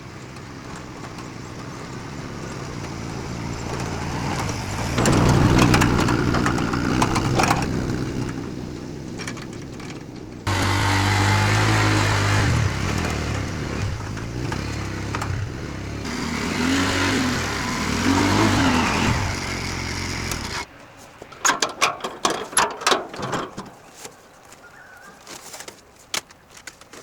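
A motor engine running, in segments that cut off abruptly, with a steady low hum in the middle part. Near the end comes a run of sharp clicks and knocks.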